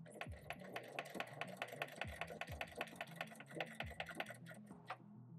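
Baby Lock Accomplish straight-stitch sewing machine stitching through eight layers of denim: a quiet, fast, even ticking of needle strokes that stops near the end.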